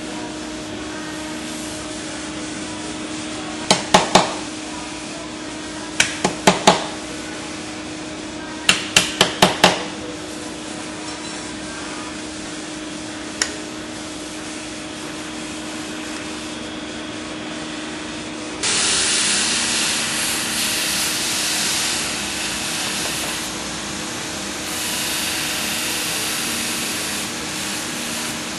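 A small hammer taps a knife clamped in a bench vise: sharp metallic taps in quick groups of three, four and five, then one single tap, over a steady workshop machine hum. About two-thirds through, a knife blade is pressed against a spinning grinding wheel, and a loud steady hiss starts abruptly and runs on.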